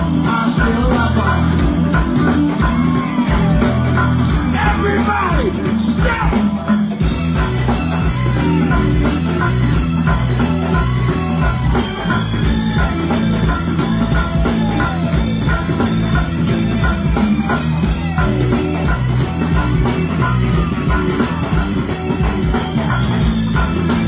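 Live go-go band playing a steady, percussion-driven groove with bass and drums, with singing over it.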